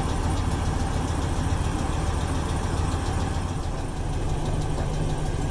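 Car engine idling with a steady, rapid ticking from inside the engine. The ticking could be a sign of significant internal wear, which can come from running on old, dirty oil.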